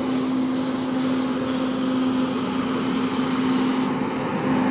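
Indian Railways passenger train pulled by a WAP-7 electric locomotive pulling into a station platform, its coaches rolling past with a steady hum under the running noise.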